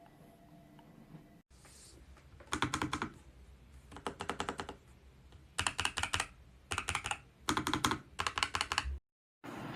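Typing on a Nuphy Air75 V2 low-profile mechanical keyboard: about six short runs of rapid key clicks with brief pauses between them.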